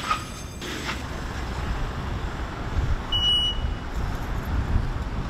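A car driving, a steady low rumble of engine and road noise. A short high beep sounds about three seconds in.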